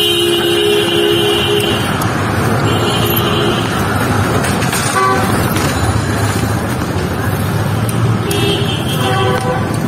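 Busy street traffic with a steady rumble of engines, and vehicle horns honking three times: a long honk at the start, a shorter one about three seconds in, and another near the end.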